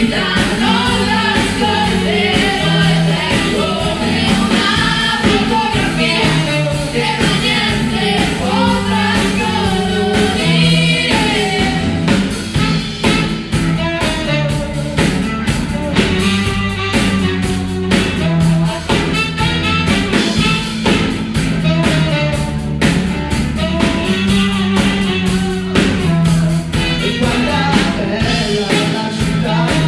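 Pop-rock song sung in Italian by lead singers, over drums, bass guitar and electric guitar, with a steady beat.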